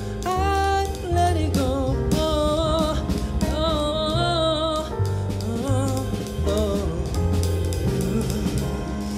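Live jazz band music: a male singer's gliding vocal runs over electric bass and drum kit.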